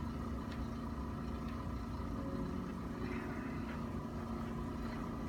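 A steady machine hum, even in level, with a few faint light ticks over it.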